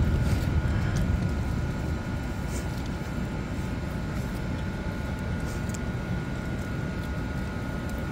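Steady low rumbling background noise with a faint, thin steady whine above it, and a few faint clicks.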